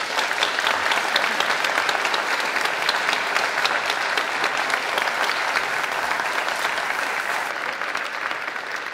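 Audience applauding: dense, steady clapping that eases off a little near the end.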